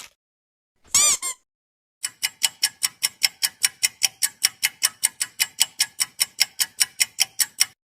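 Ticking sound effect: a steady run of sharp, even ticks, about four to five a second, lasting nearly six seconds before stopping suddenly. About a second in, a short pitched sound rises and falls in pitch.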